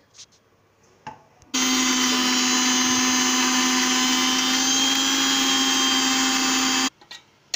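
Electric mixer grinder running steadily for about five seconds, starting abruptly about a second and a half in and cutting off near the end, as it grinds roasted poppy seeds with a little water into a paste.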